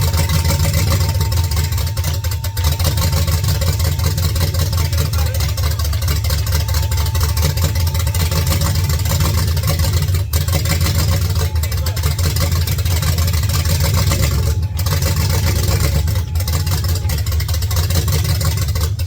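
Supercharged V8 of a second-generation Ford F-150 SVT Lightning running at a steady idle. The sound falls away over about a second at the very end.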